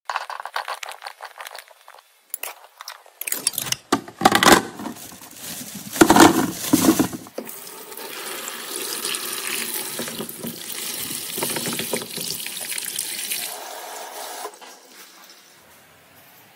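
Tap water running and splashing over a colander full of red plums, a steady rush that stops about 14 seconds in. Before it come several seconds of irregular knocks and clatter.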